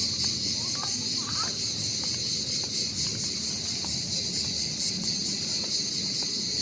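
A steady, high-pitched insect chorus with a fast pulsing rhythm, over a low rumble of background noise, with a few short chirps in the first second or so.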